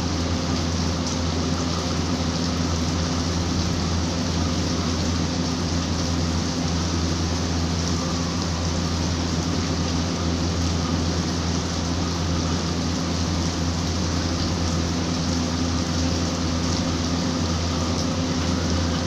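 Steady rain, an even hiss that holds level throughout, with a steady low hum underneath.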